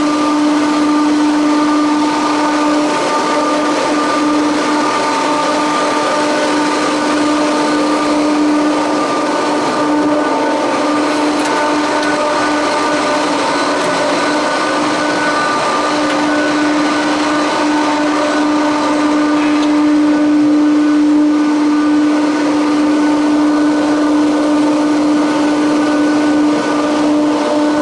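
Leitner six-seat detachable gondola's station machinery running: a loud steady hum with a strong drone and several higher whining tones.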